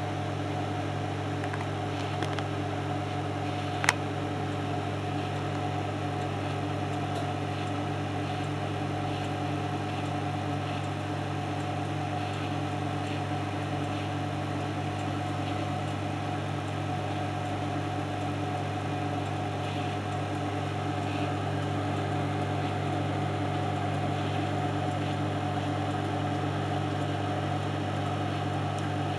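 Microwave oven running while it heats a bowl of chips: a steady electrical hum with its fan and turntable going round. There is a single sharp click about four seconds in.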